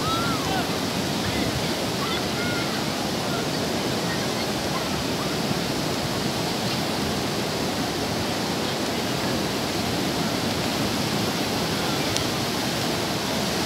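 Sea waves breaking and washing onto a beach: a steady surf roar. A few faint distant calls can be heard near the start.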